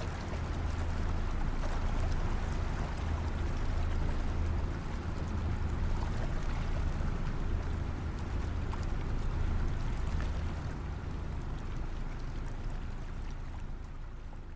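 Steady low rumble with a rushing, water-like noise over it, fading out at the end.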